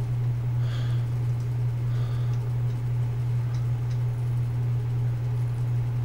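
Steady low hum, with two faint brief sounds about a second and two seconds in.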